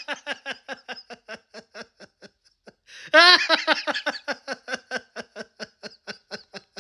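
A person laughing in two long fits of rapid 'ha-ha-ha' pulses, about six a second, each fading out; the second fit starts loudly about three seconds in.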